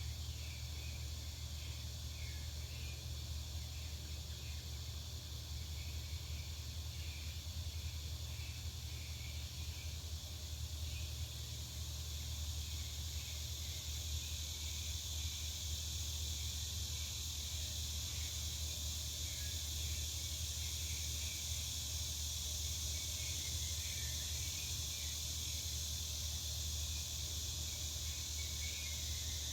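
Back-yard outdoor ambience: a steady high insect chorus with many short chirps scattered through it, growing a little louder after about twelve seconds, over a low steady hum.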